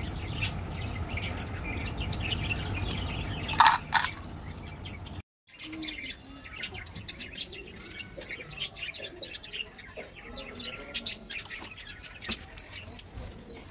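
Hands handling sweets: candy-coated chocolate beans and a plastic Kinder Joy egg, with many small clicks and rustles of plastic and wrappers and two louder sharp knocks just before four seconds in. Birds chirp in the background, and the sound cuts out briefly about five seconds in.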